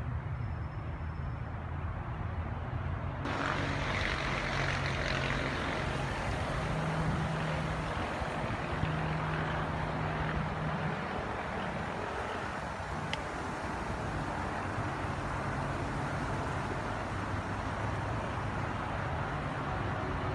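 Steady outdoor background noise: a low rumble with hiss over it, the hiss growing stronger about three seconds in.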